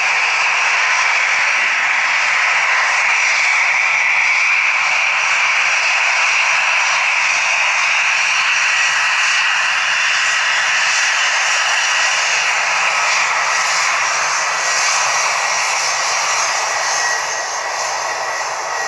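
Jet airliner engines running loud and steady close by: a broad rush with a high whine on top. The sound eases slightly in the last few seconds.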